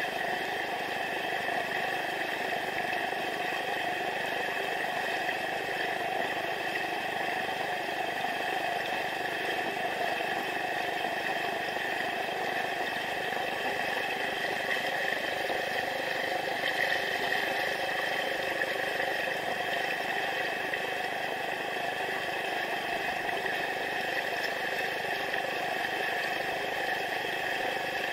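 Shallow river rapid rushing steadily over stones, heard from right at water level.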